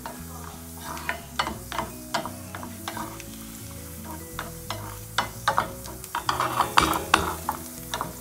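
Cashew pieces sizzling as they fry in ghee in a small pan, while a spatula stirs them with repeated scrapes and knocks against the pan, heaviest in the second half.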